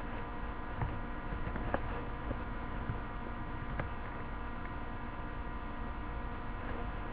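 Steady electrical hum, made of many level tones at once, with a few light knocks about one, two and four seconds in.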